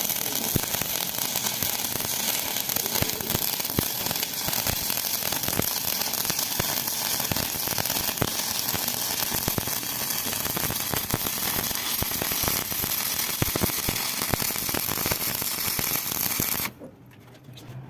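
Stick (arc) welding: the arc crackles and sizzles steadily with dense irregular pops, then cuts off suddenly near the end.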